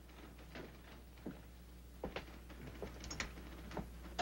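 A man's footsteps across an office floor: a string of irregular light knocks and clicks, about one every half to one second, growing louder near the end.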